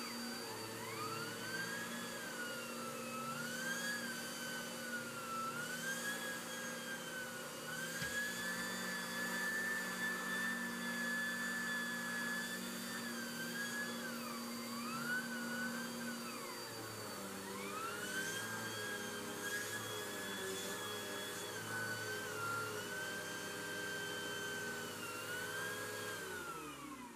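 Bagless upright vacuum cleaner running, its motor whine rising and falling in pitch again and again. Near the end it is switched off and winds down.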